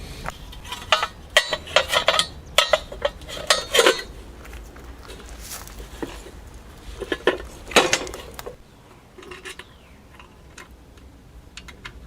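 Metal clinks and clanks as the band saw's back cover is handled and fitted into place: a string of sharp knocks over the first eight seconds or so, then only a few light ticks.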